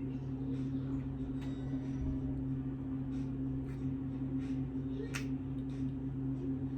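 A steady low hum, with a few faint light clicks from small plastic jars of acrylic nail powder being handled, the clearest about five seconds in.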